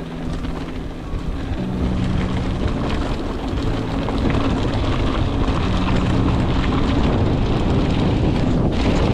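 Wind rushing over the microphone and tyres rolling on a gravel track as a mountain bike is ridden, getting louder about a second and a half in, with low music notes underneath.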